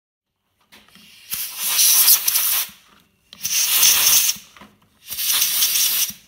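Compressed-air blow gun blowing off freshly cleaned spark plugs: three hissing blasts of air of about a second each, with short gaps between them.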